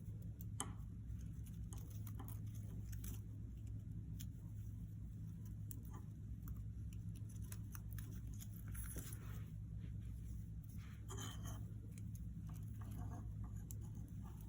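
Faint rustling and small clicks of ribbon being handled and knotted onto a wooden dowel rod, over a steady low room hum.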